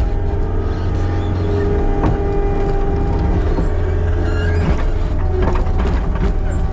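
Skid steer loader engine running steadily while pushing up feed, with a steady whine above the engine note and a few short knocks, about two seconds in and again around five seconds in.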